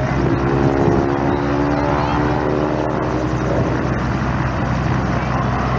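Propeller airplane's piston engine going past, a droning note that swells and then fades by about three seconds in, over a steady low hum.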